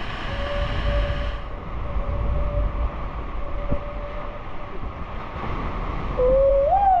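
Twin Suzuki outboard motors running with a steady low rumble, water churning around the hull. Near the end a person's voice gives a short rising-and-falling call.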